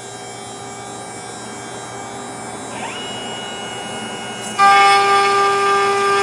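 CNC Shark router's spindle running with a steady high whine, cutting dado slots in rough-sawn pine. About halfway through, a second tone rises and then holds. A little past two-thirds in, the sound suddenly gets louder and fuller as the bit cuts into the wood.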